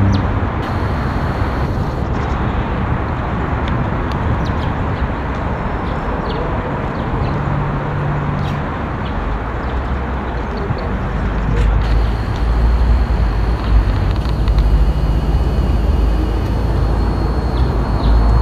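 Steady city traffic noise: a constant rumble of road vehicles that grows louder in the second half.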